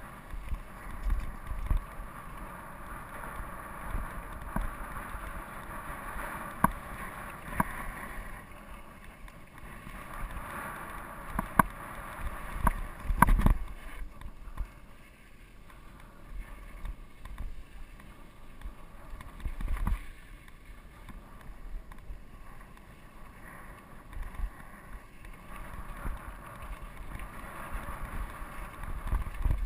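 Steel hardtail mountain bike (GT Peace 9'r) rolling down a dirt singletrack: tyres crunch steadily over dirt and loose stones, and the bike rattles and knocks over bumps, loudest about a dozen seconds in. Wind buffets the microphone.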